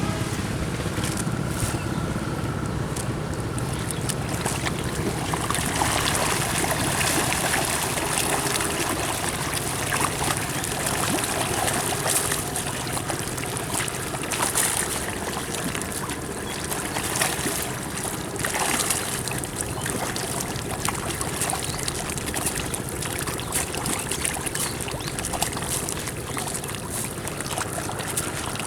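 Shallow pond water sloshing and splashing, with irregular small splashes, as someone works by hand in the water.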